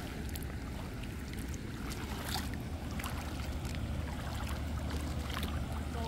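Steady rush of water pouring over a reservoir's spillway as it overflows.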